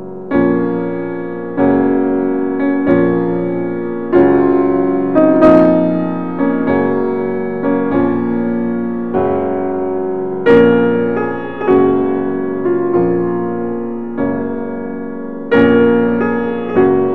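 Slow background piano music: chords struck roughly once a second, each left to ring and fade before the next.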